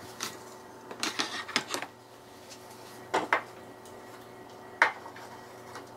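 Light knocks and clatters of framed pictures being handled and set down on a wooden floating shelf. A handful of short, separate sounds come through, the loudest near the end, over a faint steady room hum.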